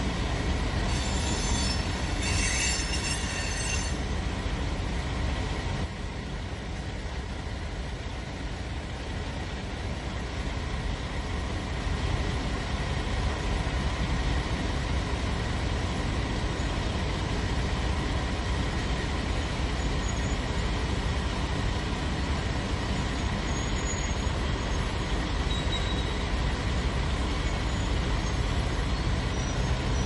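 Freight train rolling past: a steady rumble of rail cars on the track, with high wheel squeal in the first few seconds.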